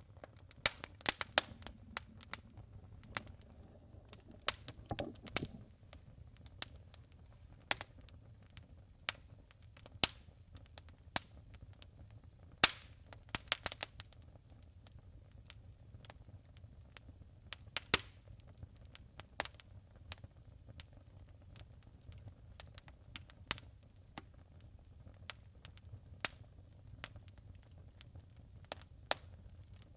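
Wood burning in a fireplace, crackling with irregular sharp pops and snaps, some coming in quick clusters, over a low steady rumble.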